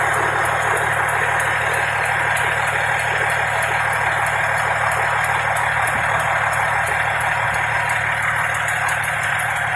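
Fire engine's diesel engine idling steadily, with a light regular ticking over it.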